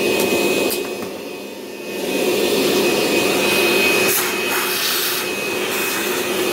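A DeWalt vacuum running with a steady whine, sucking metal shavings out of a drilled-out bolt hole. Its sound dips for about a second near the start, then comes back up to full strength.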